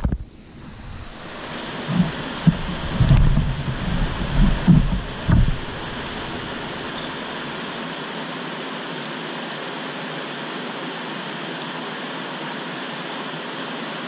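Shallow creek water running over rocks, a steady rushing hiss. Low rumbling thumps come and go during the first five or so seconds, then only the water remains.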